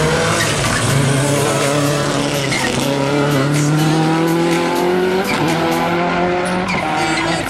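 Volkswagen Scirocco rallycross car's engine accelerating out of a corner, its note climbing and then dropping as it lifts and shifts, with sharp cracks through the exhaust.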